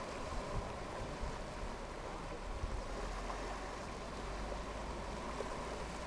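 Small waves lapping gently at a rocky shoreline, a steady wash of water, with low wind rumble on the microphone.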